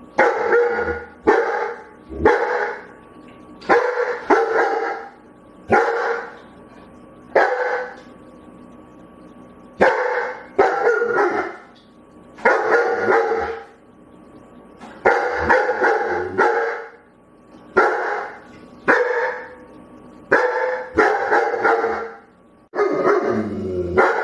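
A dog barking over and over: single and paired full-voiced barks every second or two, with short pauses between the groups.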